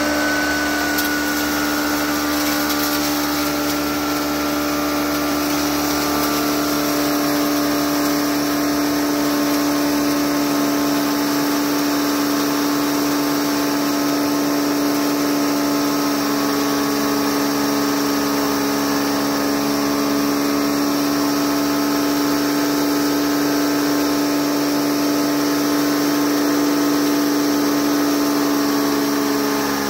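Model 198 hammer mill running steadily while grinding hemp hurd through a 4 mm screen: a loud, even machine hum with one strong steady pitch.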